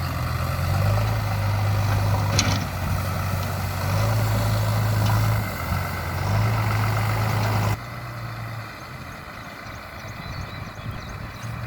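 Heavy diesel engine of a JCB 3DX backhoe loader running as it works, its low drone rising and falling with the load, with a brief knock about two seconds in. About eight seconds in it drops abruptly to a quieter, steady engine hum.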